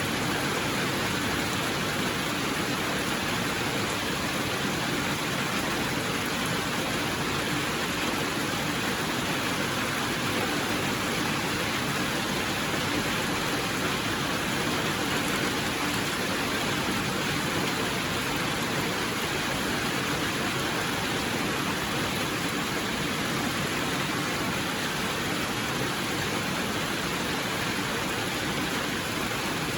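Steady rain falling, an even hiss of rainfall that does not change.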